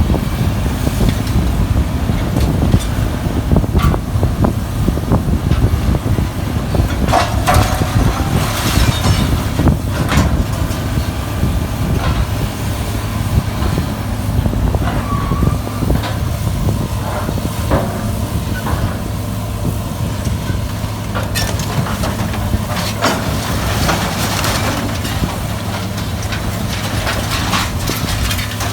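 Sierra 656SL metal shear baler running under power with a steady low drone, with scattered metal clanks and a few crunching, hissing stretches as scrap is handled and compressed.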